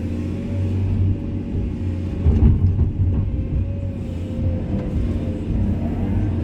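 Komatsu excavator's diesel engine running under load with a steady low rumble and a faint steady whine above it, and a single knock about two and a half seconds in.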